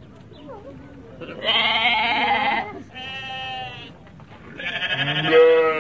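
Sheep bleating: three wavering calls. The first and last are loud, and the middle one is quieter.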